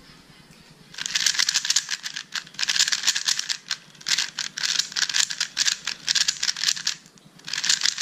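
GAN 356 Air UM magnetic 3x3 speedcube being turned quickly by hand: a dense clatter of plastic layers clicking, starting about a second in and coming in short spells, with a longer pause near the end.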